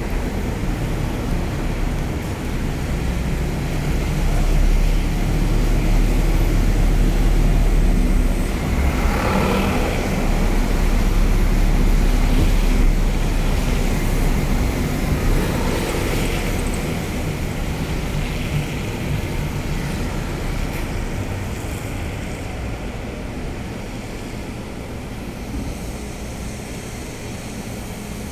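Car engine and road noise heard from inside the cabin as the car drives. A deep rumble swells a few seconds in, holds, then slowly eases off.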